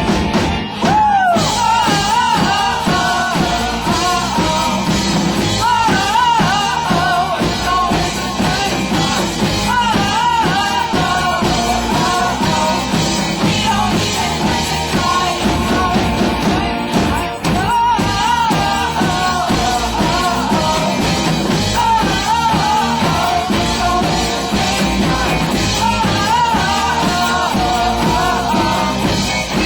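Loud rock music with a singer's voice over a full band, playing without a break.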